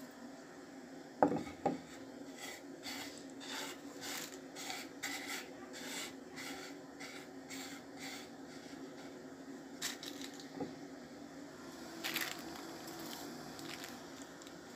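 Carom seeds (ajwain) being crushed with a rhythmic rubbing and scraping, about three strokes a second, after two sharp knocks about a second in. A steady low hum runs underneath.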